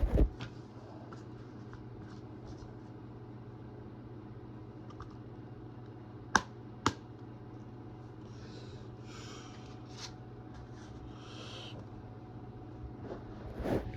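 Plastic DVD and Blu-ray cases and their packaging being handled: a knock at the start, two sharp clicks about half a second apart midway, and soft rustling later, over a low steady hum.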